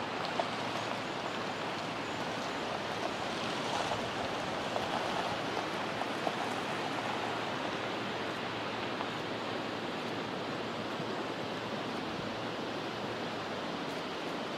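Steady rush of falling water from waterfalls cascading down a rock cliff.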